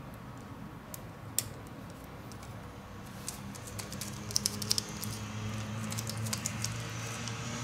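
A single small click about a second and a half in as the Xperia Z2's battery flex connector is unclipped, then a run of crackling and sharp ticks from about halfway as the battery is peeled up off its adhesive.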